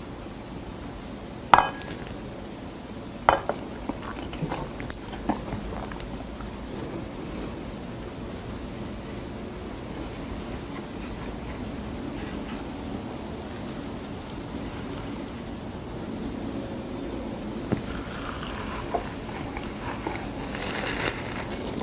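A spoon clinks and scrapes on a plate while rice is spread onto sheets of dried gamtae seaweed, with two sharp clinks in the first few seconds. This gives way to a soft crackly rustling as the crisp seaweed is handled and folded, then crunchy bites into the seaweed wrap near the end.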